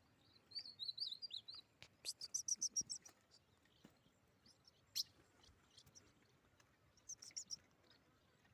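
Ultramarine grosbeak (azulão) calling: a short warbling phrase, then a fast run of high chirps, and another fast run about seven seconds in. A single sharp click about five seconds in.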